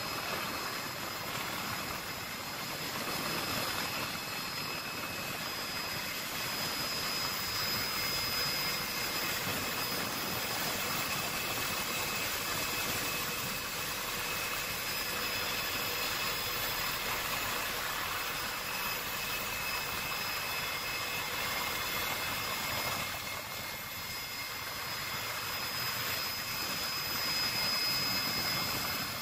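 Helicopter engine and rotor noise heard from inside the cabin: a steady rush with a faint, steady high whine.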